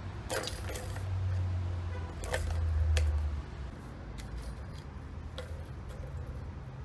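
Balls clattering and clicking in the plastic track of a cat's tower toy as a cat bats at them: a few separate rattles, over a low rumble that swells in the first half and then fades.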